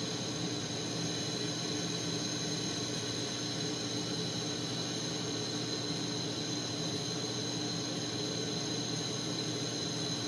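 Propane-oxygen glassworking torch burning with a steady hiss while glass is heated in its flame.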